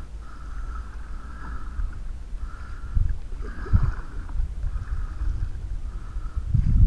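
Canoe being paddled on calm water, with a low wind rumble on the microphone. Two soft knocks come about three and four seconds in, and a stronger paddle stroke pulls through the water near the end.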